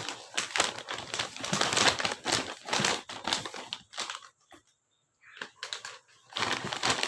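Plastic packaging crinkling and rustling as it is handled and opened, in irregular crackles, with a short pause a little past the middle before the crinkling starts again.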